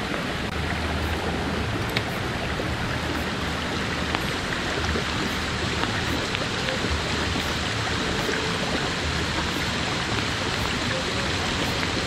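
Mountain stream rushing over rocks, a steady even flow of water.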